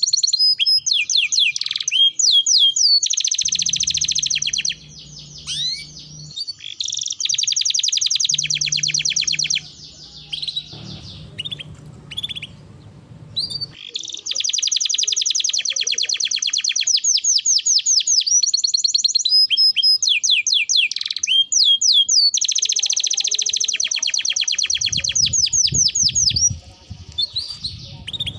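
A songbird singing in long, fast trills of rapidly repeated high notes, broken by short pauses and a few single gliding whistles.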